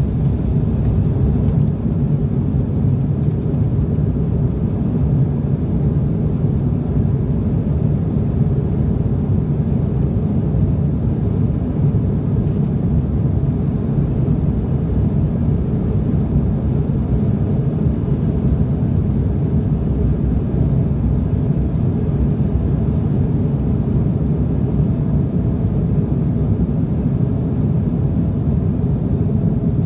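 Steady low rumble of an Embraer 175 jet heard inside its cabin from a seat over the wing, as the airliner rolls along the ground toward takeoff: its two CF34 turbofan engines and the wheels on the pavement.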